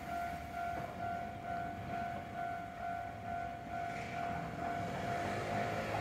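Japanese railway level-crossing warning bell ringing as a steady, rapidly repeating electronic ding while the barriers are down. A low rumble grows under it near the end.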